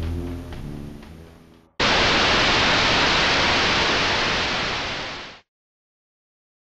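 Background music fading out, then a burst of loud static hiss that starts suddenly, lasts about three and a half seconds and cuts off abruptly into silence.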